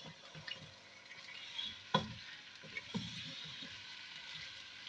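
Raw chicken pieces sizzling in hot oil as they are sautéed, stirred with a wooden spatula in a nonstick pot. Short scrapes and knocks of the spatula against the pot break through the sizzle, the clearest about two seconds in and again about a second later.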